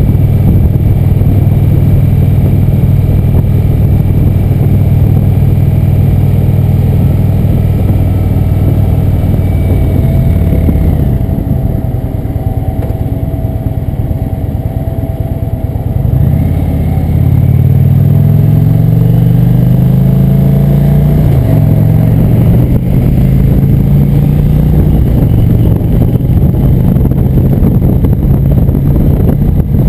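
Indian V-twin motorcycle engine running at highway cruising speed. About ten seconds in, the throttle eases off and the engine drops back and quietens for several seconds. It then pulls up again in a few rising steps through the gears and settles back to a steady cruise.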